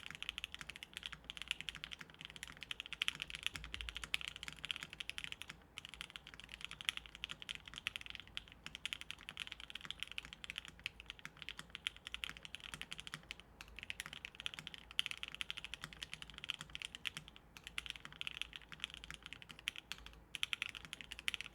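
Fast, continuous typing on a Monokei x TGR Tomo mechanical keyboard with lubed JWK Lilac linear switches, a polycarbonate plate, o-ring mount and GMK keycaps, broken by a few short pauses.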